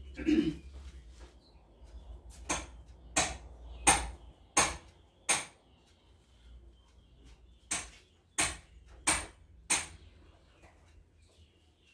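Sharp knocks in two evenly paced runs, five and then four, about two-thirds of a second apart.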